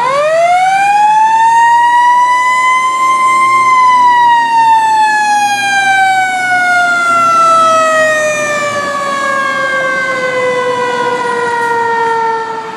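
Fire truck's mechanical siren winding up fast to its top pitch, holding briefly, then slowly coasting down in one long falling wail as it spins down.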